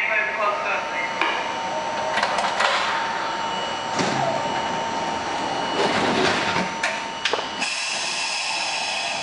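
The inside of an R42 subway car at a station: a steady hum with clanks and knocks as the doors close. A higher whine comes in near the end as the train starts to pull out.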